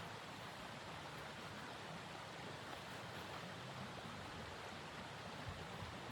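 Steady rushing of blizzard wind, an even hiss with no breaks or gusts standing out.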